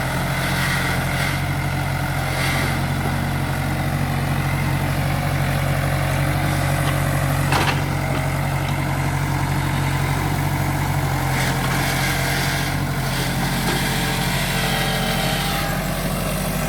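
Case 1845C skid steer's diesel engine running steadily, with one sharp knock about seven and a half seconds in.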